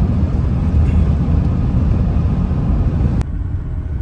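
Steady low rumble of car road noise. About three seconds in it cuts suddenly to a quieter rumble.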